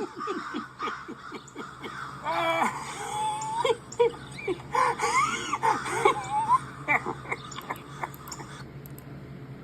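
Silly vocal sound effects: a run of rapid laughs, then high wavering, gliding squeals and yelps that fade out near the end.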